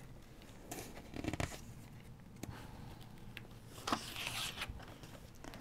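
Paper rustling and sliding as a picture book's page is turned by hand: soft scrapes about a second in and again near four seconds.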